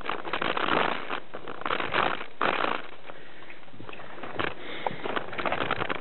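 Heavy, irregular breathing of a mountain biker close to the microphone, in puffs about every half second to second, over the clicks and rattle of the bike moving along a dirt trail.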